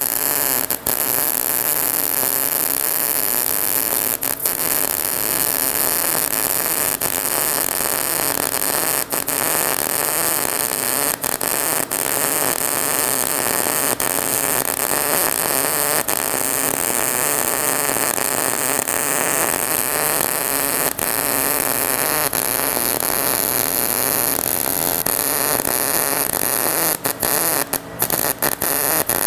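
MIG welding arc from an Everlast Cyclone 200e running solid wire at 19 volts and 340 inches per minute wire feed, laying an open-butt root pass on bevelled 3/8-inch steel plate: a loud, steady sizzle, broken by a few momentary drop-outs, several close together near the end.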